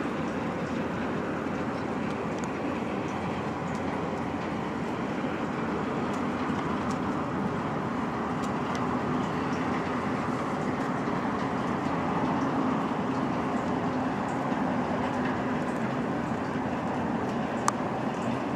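Engines of the offshore vessel Normand Ranger running as it passes close by: a steady rumble with a faint low hum, swelling slightly midway.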